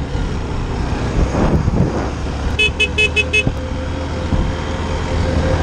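Motorcycle engine running with wind noise on the helmet camera. About halfway in, a horn gives five quick beeps in a row as a car cuts across the bike's path.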